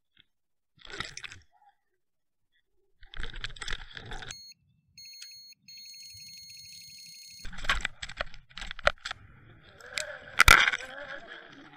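An electronic carp-fishing bite alarm beeping rapidly for about two seconds in the middle, signalling a take. Around it, rushing water noise with sharp knocks, the loudest knock about ten and a half seconds in.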